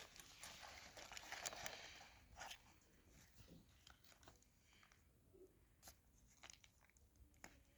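Faint handling noises: a soft rustling scrape for about the first two seconds, then scattered light clicks and taps.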